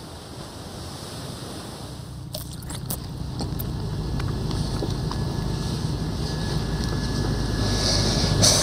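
Motorboat running over open sea: a steady low engine drone with rushing water and wind, growing steadily louder.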